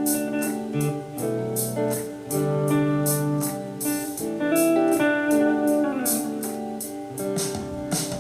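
Electric guitar through a Blackstar amp on its crunch setting, with a little delay and reverb, playing a sustained lead line in E minor over a backing track with drums. One note slides down in pitch about six seconds in.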